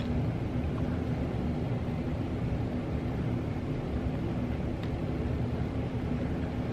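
A steady low rumble with a constant hum running under it, and one faint click about five seconds in.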